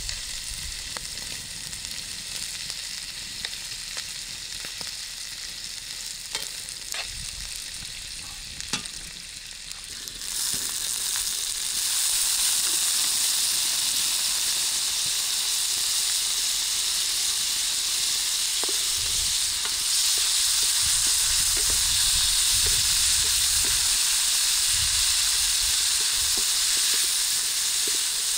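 Meat frying in a pan, sizzling steadily, with a few light clicks of a utensil in the first ten seconds. The sizzle grows louder about ten seconds in and stays strong.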